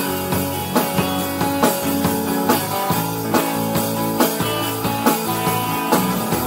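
Live rock band playing an instrumental passage: strummed guitars and a drum kit keeping a steady beat, with a strong hit a little under once a second.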